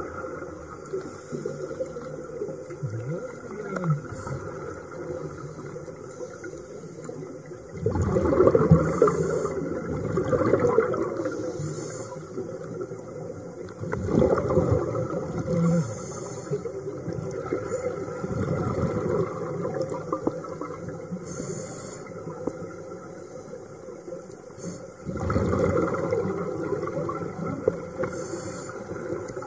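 Scuba regulator breathing heard underwater: a short hiss on each breath in and a gurgling rush of exhaled bubbles, repeating every few seconds, loudest about 8 and 25 seconds in.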